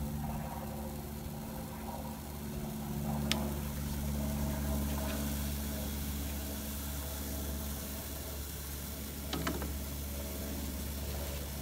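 A steady low mechanical hum, engine-like, runs throughout while a pile of cut hair burns in an open barrel grill. Two sharp clicks stand out, about three seconds and nine seconds in.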